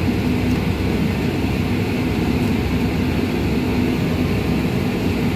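Steady low machinery rumble with a faint constant hum, unchanging throughout.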